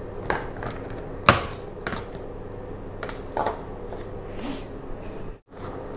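A few sharp clicks and knocks of kitchen utensils and dishes being handled at a counter, the loudest about a second in, over a steady low hum, with a brief hiss near the end.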